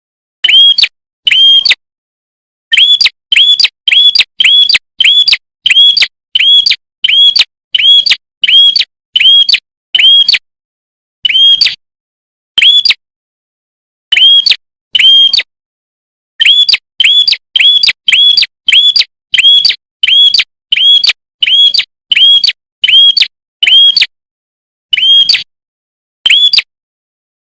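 Prenjak kepala merah, a small songbird, calling a long run of short, sharp, identical chirp notes, about two a second, each note flicking up and then holding its pitch. The run breaks off now and then for a pause of a second or two.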